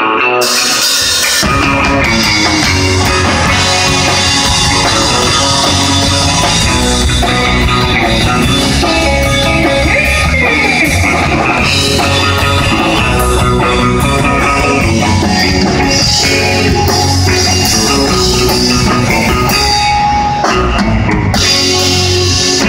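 Live rock band playing loud: electric guitar alone at first, then the drum kit and low end come in about a second and a half in and the full band plays on.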